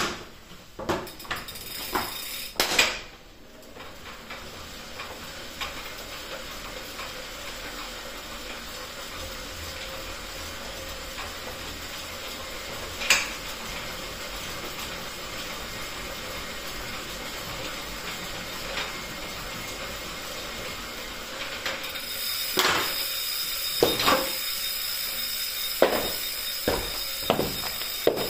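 Wahoo KICKR Core direct-drive smart trainer whirring steadily as a bike is pedalled on it, with a single sharp click about halfway through. Clicks and knocks come at the start, and several sharp clicks come over a louder whir in the last few seconds.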